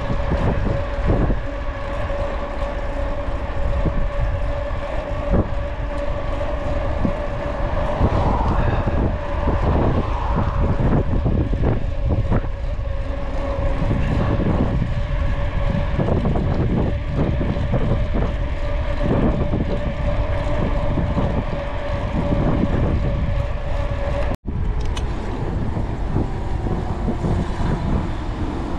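Wind buffeting the microphone over the rolling noise of a 29er mountain bike riding on a paved cycle path, with a steady hum that stops at a brief dropout near the end.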